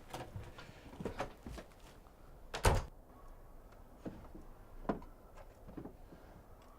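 A door shutting with one loud thud about two and a half seconds in, among a few lighter knocks before and after.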